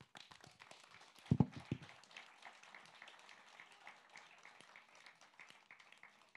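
Audience applauding lightly, a dense patter of claps, with a few low thumps about a second and a half in.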